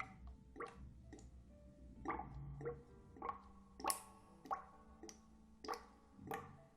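A run of soft, wet ASMR trigger clicks under a heavy echo effect, about one every half-second. Each click trails a ringing tone.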